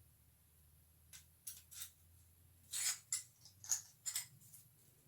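Metal parts of a fish-shaped Chinese padlock clicking and scraping as it is worked by hand with its H-shaped key: a series of short sharp clicks, with a slightly longer scrape about three seconds in.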